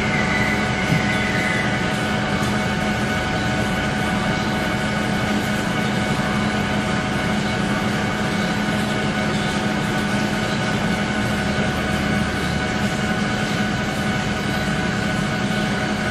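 Machine tool running steadily while machining a trunnion shaft: a constant hum with several steady whining tones above it.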